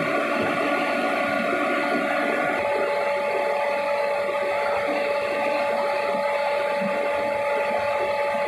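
Industrial rotary screw air compressors, one an Atlas Copco, running on load: a steady drone with a high whine on top, as the air pressure builds toward the unload point.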